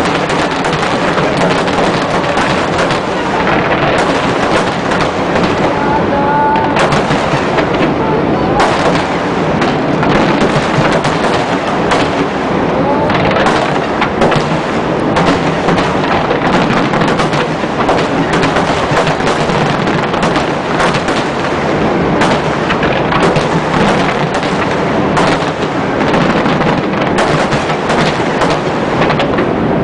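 Fireworks display: aerial shells bursting in a rapid, unbroken barrage of booms and crackles.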